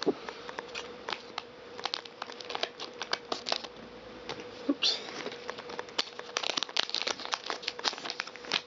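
Foil wrapper of a Pokémon card booster pack crinkling and tearing as it is opened by hand: a dense run of irregular sharp crackles.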